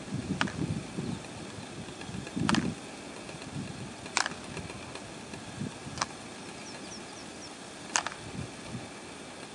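Alpine ibex horns clacking together as the males spar: five sharp knocks spaced about two seconds apart, over a low rumble.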